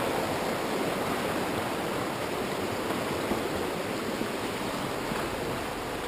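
Steady rush of a fast-flowing rocky river with white water.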